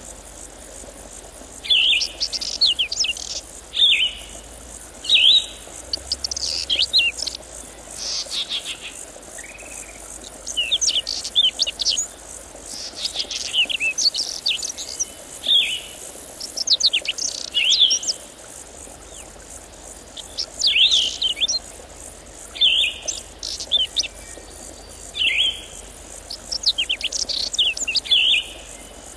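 A songbird singing short, high chirping phrases, one every second or two.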